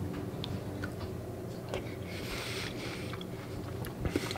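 A person chewing a mouthful of yogurt with frozen blueberries: quiet, wet mouth sounds and small clicks over a low steady hum, with a brief knock near the end.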